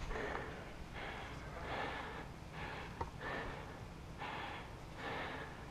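Heavy breathing of a hurling goalie close to the camera's microphone, soft puffs of breath about once a second, over the low hum of a large indoor hall.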